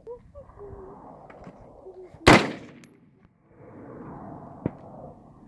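A single AR-15 rifle shot about two seconds in, with a short echo trailing off.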